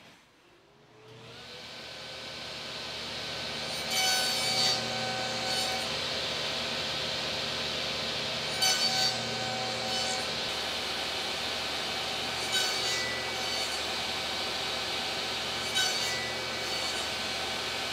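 Table saw starting up, its motor pitch rising and then holding steady as it runs. The spinning blade cuts box-joint slots in plywood held in a sliding jig, with four louder cuts a few seconds apart.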